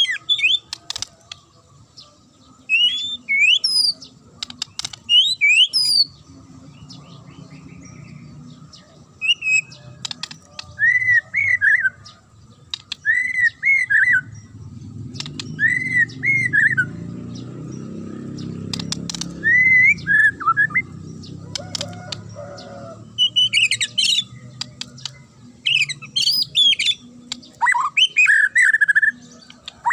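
White-rumped shama (murai batu) singing in bursts of short, sharp whistled phrases and chirps, with fast rising and falling notes and gaps of a second or two between phrases. A low background rumble swells for several seconds around the middle.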